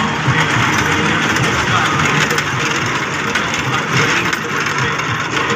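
Loud, steady din of a fairground children's ride train and other ride machinery running, with no pauses.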